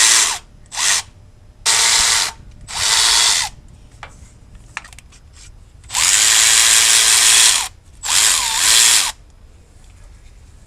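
A hand-held power tool, such as a power ratchet or drill, runs in six short bursts of up to about a second and a half while it spins bolts out. Its motor pitch sweeps up and down as each burst starts and stops, and there is a longer pause in the middle.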